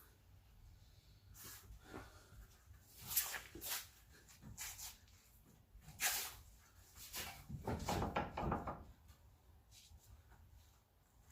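Irregular short creaks and squeaks from the damaged driver's-side front suspension of a Dodge Ram 1500 as the truck is rolled forward and back, with a busier run of them about seven to nine seconds in.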